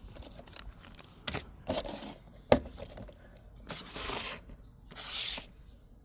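Unboxing handling of a Leatherman Signal multi-tool and its packaging: short bursts of rustling and scraping, with one sharp click about halfway through.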